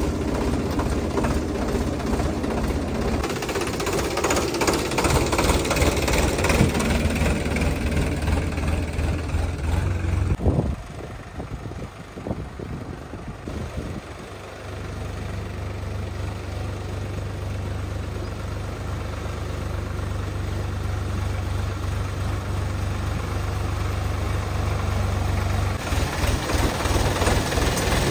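Sonalika Mileage Master 39 tractor's diesel engine running steadily as the tractor works a rear blade through mud. It goes quieter and uneven for a few seconds about ten seconds in, then settles into a steady hum that grows louder toward the end.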